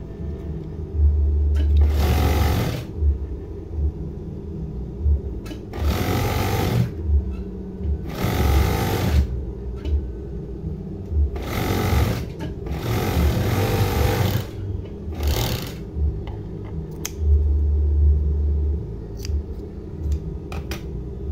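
Industrial overdeck (coverstitch) sewing machine stitching tape onto fabric in about six short runs, each a second or so of rapid stitching, with pauses between, over a steady low motor hum.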